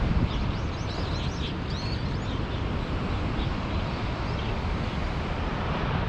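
Steady wind noise rumbling on the microphone over the rush of breaking surf, with a quick run of high bird chirps in the first two seconds or so.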